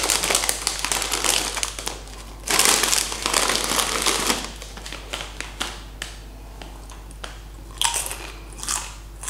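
A plastic chip bag of Doritos Cool American crinkling as it is pulled open and a chip is taken out, loudest from about two and a half to four seconds in; then the short, crisp crunches of a tortilla chip being bitten and chewed.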